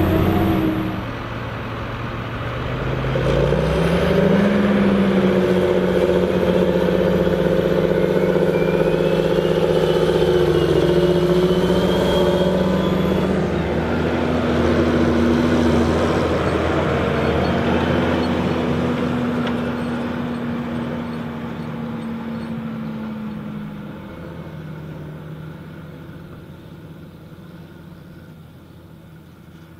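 Large farm tractor's diesel engine working hard under load, hauling a heavy trailer. Its note rises a few seconds in, holds steady, then fades away over the last several seconds.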